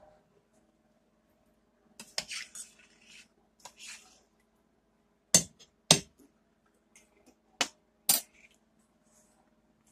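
Stainless steel saucepan and metal spoon clattering on a glass-top stove: scraping and rattling for a couple of seconds, then four sharp clinks in two quick pairs.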